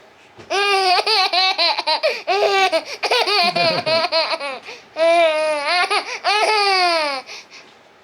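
Baby boy laughing hard in long runs of quick, high-pitched belly laughs, breaking off briefly about halfway through.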